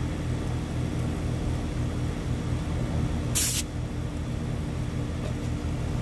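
A short, sharp hiss of refrigerant a little over three seconds in, as the high-side hose fitting comes off the air conditioner's high-side service port. Under it the running condenser unit hums steadily.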